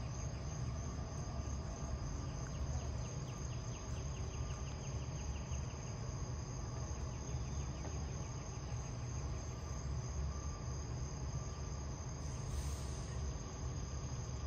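Insects calling in chorus: a steady high trill, with a fast pulsing chirp in the first half, over a low steady rumble. A brief hiss near the end.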